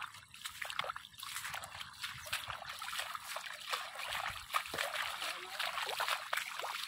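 Footsteps splashing through shallow water and wet grass: a steady run of small, irregular splashes.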